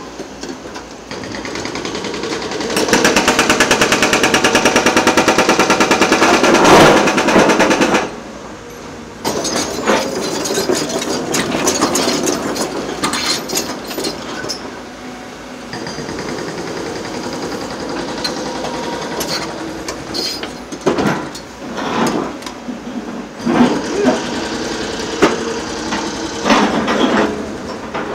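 Heavy excavator work on rail track demolition: a loud, fast, even rattle for about five seconds, then irregular metal clanks and sharp knocks as the machines work the track material.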